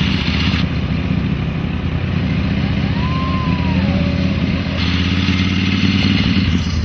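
An engine running steadily, with a faint whistle that rises and falls once about three seconds in.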